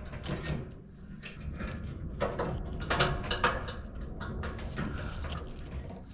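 Handling noise from repair work on an electric dryer: a series of separate clicks and light knocks as parts and metal are moved and fitted into place.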